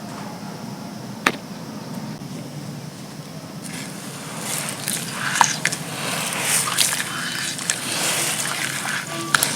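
Wet paste poured onto dry, gritty black chunks. It crackles and trickles as it soaks in, starting about four seconds in over a low steady hum, with a single sharp click about a second in.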